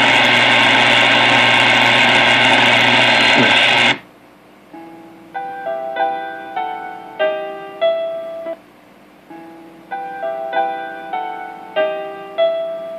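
Vintage tube radio's speaker giving a steady hiss with hum for about four seconds, which cuts off suddenly as the dial is turned. A short piano-like tune of plinking, fading notes then plays through the speaker, the same phrase twice.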